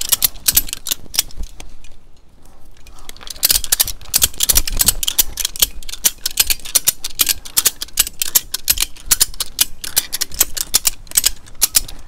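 Ratchet strap winch clicking rapidly as its handle is pumped, the pawl snapping over the spool's teeth in quick runs of clicks, with a short pause about two seconds in.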